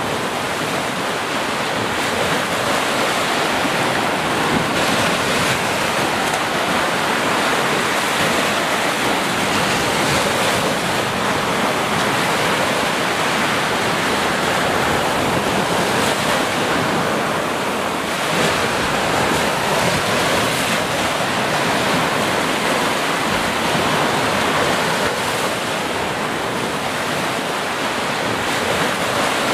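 Small ocean waves breaking and washing up a sandy beach: a steady, continuous rush of surf.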